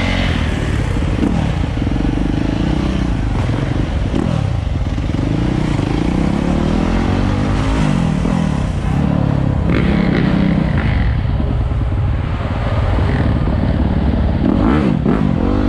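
Dirt bike engines running and revving, their pitch rising and falling again and again.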